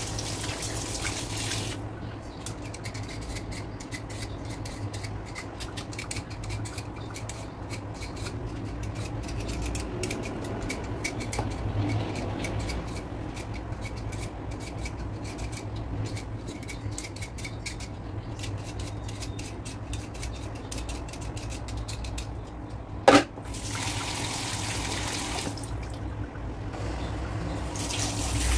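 Kitchen tap running into a sink over a colander, then a long stretch of short, quick scraping strokes from a vegetable peeler on a potato. A single sharp knock comes about 23 seconds in, and the tap runs again near the end, water pouring through a steel mesh strainer of minced meat.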